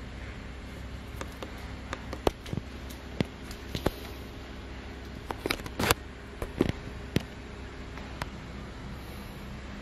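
Sharp irregular taps and clicks of a cat's paws and claws striking a tile floor as it bats at a cockroach. They come singly and in a quick cluster around the middle, over a steady room hiss and low hum.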